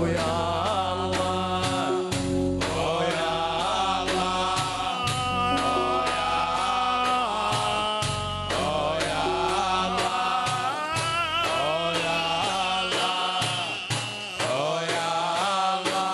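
A song with voices singing long, wavering lines over a steady drum beat.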